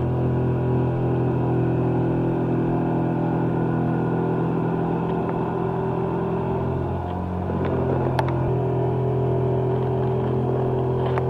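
Background music: a dark, low drone of held synth chords that shifts to a new chord about seven seconds in.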